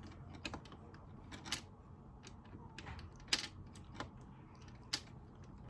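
Irregular light clicks and taps of the metal tweezers against the plastic pieces and board of an Operation game as a stuck piece is worked at, the sharpest click about three seconds in and another near the end.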